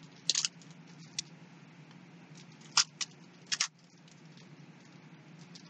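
Five short, scratchy rustles and taps in about three and a half seconds, from handling a sheet of rubber leaf stamps and its plastic packaging, over a faint low hum.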